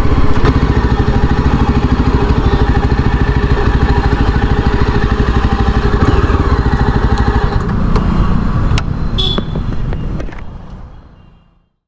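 Yezdi Adventure's 334 cc single-cylinder engine running at low speed with an even, pulsing exhaust note, then fading out near the end.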